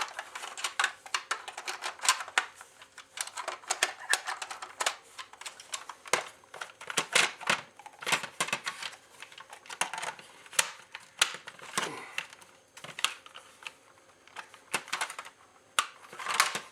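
Hard plastic blaster parts clicking and clattering irregularly as they are handled and pushed into place during reassembly of a Nerf Rival Apollo.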